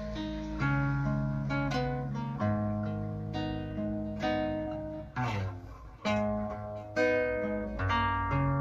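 Background music: acoustic guitar playing plucked notes and chords that ring and fade, with a couple of strummed chords a little past halfway.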